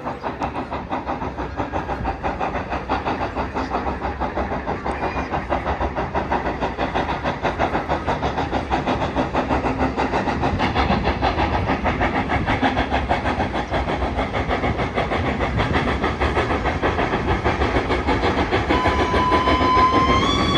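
Hudswell Clarke standard gauge steam locomotive No. 31 working hard up a 1 in 13 gradient: a steady run of heavy exhaust chuffs that grows louder as it climbs nearer. Its whistle sounds near the end.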